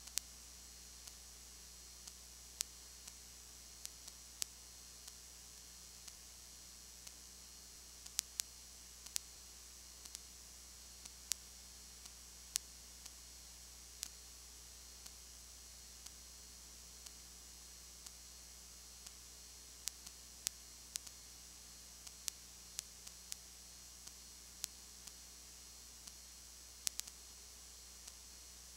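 No game sound: a steady electrical hum and hiss with sharp clicks scattered at uneven intervals, roughly one a second.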